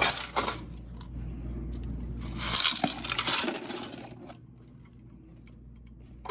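Small metal objects jingling and clinking in two bursts: a short one at the very start and a longer one of about a second and a half from about two and a half seconds in.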